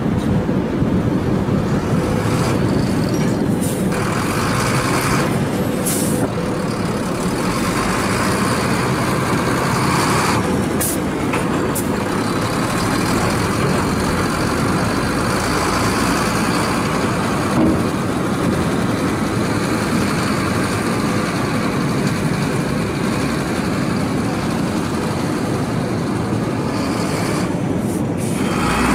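Heavy diesel engine of a Howo three-axle dump truck running steadily as it tips its load and drives off. There are several short hisses of released air in the first twelve seconds or so.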